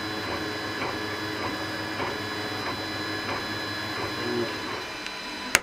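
JGaurora A5 3D printer printing: stepper motors whining in short, changing tones as the print head moves, over a steady hum. A sharp click comes near the end.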